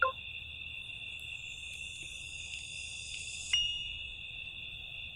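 A steady, unbroken high trilling of night insects such as crickets, with a fainter higher buzz over it for the first few seconds and a single soft click about three and a half seconds in.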